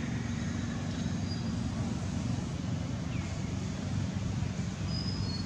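Steady low outdoor rumble, with a few faint, short high chirps over it.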